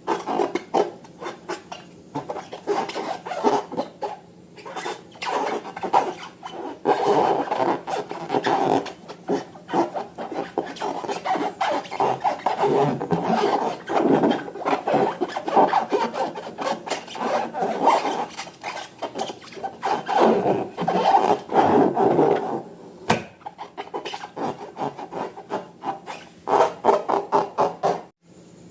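Slime being worked in a bowl or by hand, a run of quick, irregular squelching and rubbing strokes with a few short pauses.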